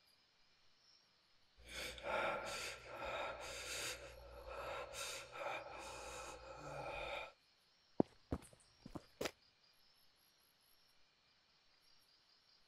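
A person's heavy, gasping breaths over a low rumble, cutting off suddenly, followed by a few sharp clicks. Crickets chirp faintly throughout.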